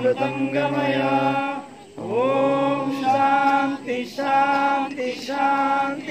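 A group of voices chanting a devotional chant together, each phrase sung as a long held note, with short breaks between phrases.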